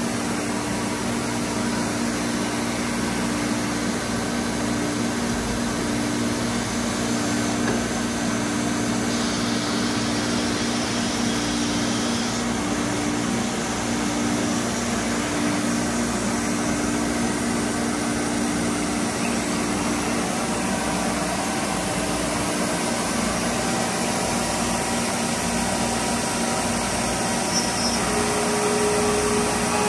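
CMS five-axis CNC router's spindle running and cutting a part, a steady, even whir with a low hum underneath. The hum changes about two-thirds of the way through, and a higher tone comes in near the end.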